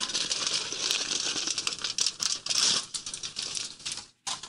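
Aluminium foil crinkling as it is crumpled and worked by hand: a dense crackle of small clicks that stops about four seconds in, followed by one short burst.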